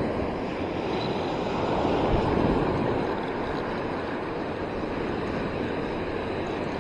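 Surf washing onto the beach: a steady rush that swells briefly about two seconds in, then eases.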